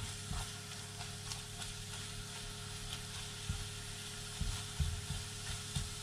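Scrambled egg sizzling in a hot frying pan while a spatula stirs it, knocking against the pan half a dozen times, most of them in the second half. The egg is nearly cooked.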